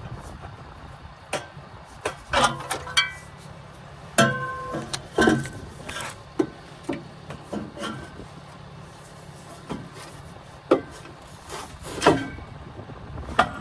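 Irregular metal clanks and knocks from exhaust parts and hand tools being handled while a mid pipe is fitted and bolted under a car. Some strikes ring briefly, and the loudest come in the middle and near the end.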